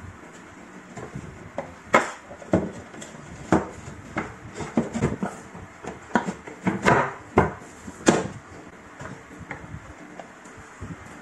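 Wooden toe-kick board being fitted under cabinets, its plastic plinth clips snapping onto the cabinet legs: a run of irregular wooden knocks and clicks over a steady hiss, the sharpest about two, seven and eight seconds in.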